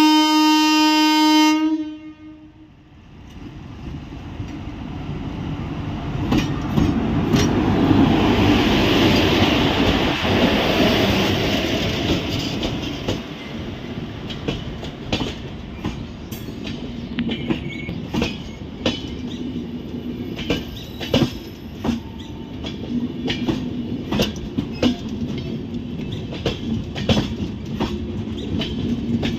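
WAP-4 electric locomotive's horn sounds one blast of about two seconds at the start. The locomotive then passes close by with a rising rush of noise. Its passenger coaches follow, rolling past with a steady clickety-clack of wheels over the rail joints.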